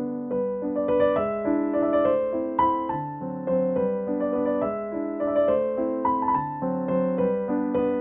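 Background piano music: a gentle melody of single notes played over lower held notes.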